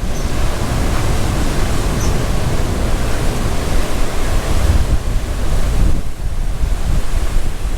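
Storm wind buffeting the microphone with a heavy low rumble over pounding surf, as Hurricane Nicole's wind and waves hit the beach.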